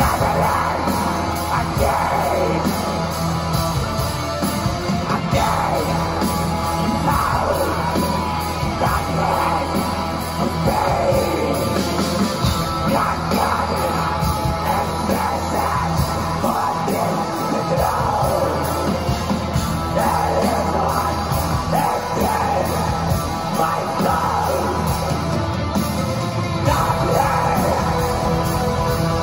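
Live metal band playing at full volume: distorted electric guitars, bass and drums with a shouted lead vocal, heard through the club's PA.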